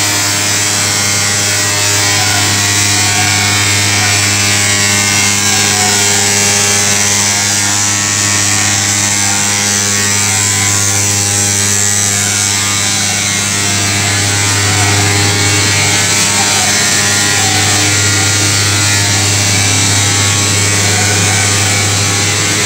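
Sawdust drum dryer installation running: a loud, steady machine hum with a strong low tone under an even rushing noise.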